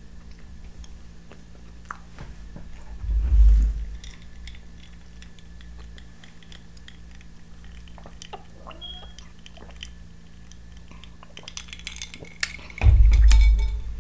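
Close-miked eating and drinking: chewing with small clicks, and two heavy low thumps, about three seconds in and near the end. The later thump comes with a cluster of clinks as a glass of iced drink is set back down on the table.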